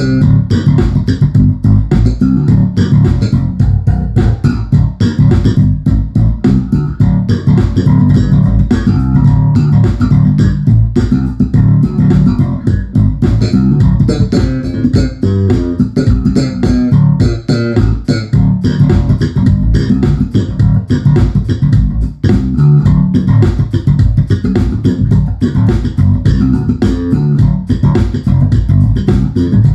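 Kiesel electric bass played fingerstyle: a continuous stream of quick plucked notes, mostly in the low register.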